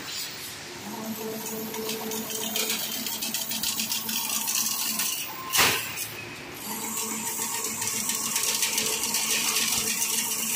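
Double-wire fully automatic chain link fence machine weaving 5 mm wire: a steady motor hum over a fast rattle. There is one loud clank a little over halfway through, and the hum drops out for about a second around it.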